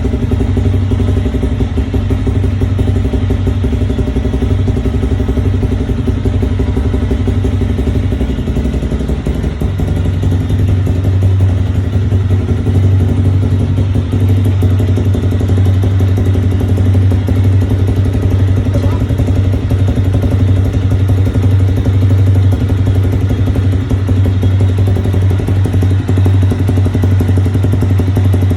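Motorcycle engine running at a steady idle through an aftermarket Taro GP V3 exhaust, a loud, even low note that barely changes.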